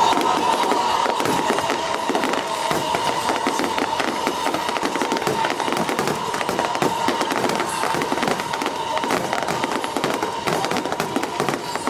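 Fireworks crackling, a dense stream of rapid small pops and bangs, with music playing alongside.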